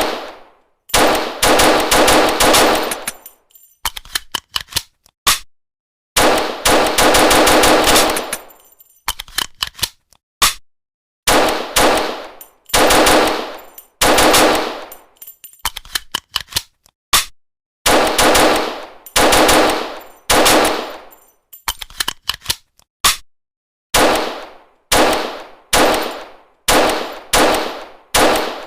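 Walther P38 9 mm pistol firing: rapid strings of shots about a second in and again about six seconds in, then separate shots, each with a ringing tail, coming about once a second near the end.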